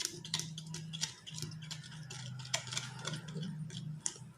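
Spoon stirring glue and paint in a plastic container, giving irregular light clicks and scrapes, over a faint low steady hum.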